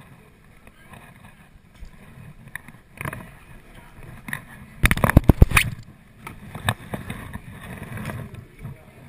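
Kayak being moved and handled on the water: low sloshing and shifting, with scattered hard knocks. About five seconds in comes a quick run of loud knocks and rattles against the hull.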